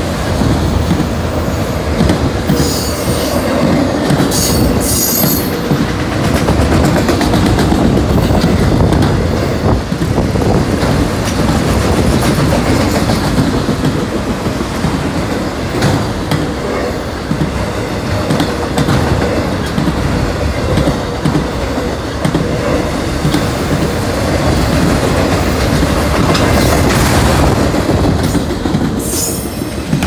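Freight train of autorack cars passing close by at speed: a steady rumble and clatter of steel wheels over the rail joints, with brief high wheel squeals about three and five seconds in and again near the end.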